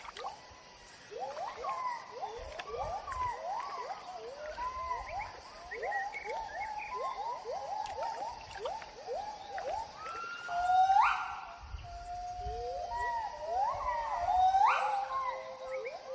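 Gibbons singing: a long run of short rising hoots that builds to two loud, higher climbing whoops, a gibbon great call.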